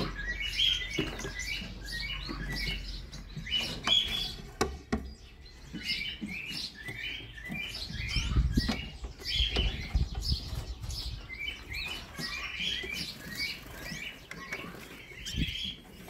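Canaries chirping: short, quick calls repeated in clusters, with a few light clicks and taps mixed in.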